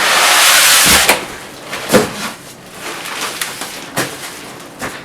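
Unpacking noise: a loud rustle of packaging for about a second, then a few separate knocks and thumps as parts are handled.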